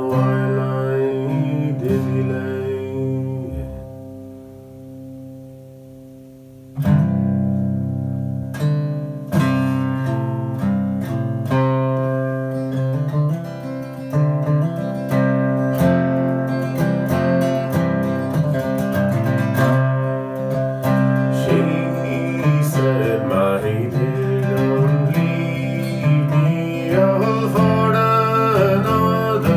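Acoustic guitar: a chord rings and slowly fades away, then fingerpicked playing starts again abruptly about seven seconds in and carries on as a steady run of notes.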